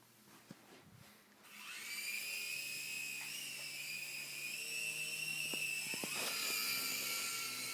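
RC helicopter's motor and rotor spinning up about a second and a half in: a high whine that rises in pitch, then holds steady.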